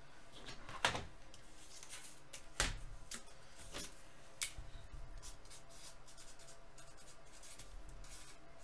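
Two knocks on a tabletop as cardboard is set down, about a second in and near three seconds, followed by a pen scratching faintly as it writes on brown cardboard.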